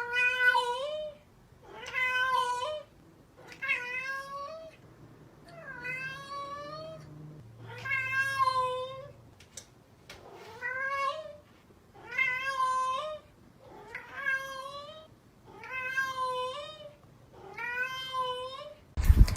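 A cat meowing over and over: about ten drawn-out meows, one every two seconds or so.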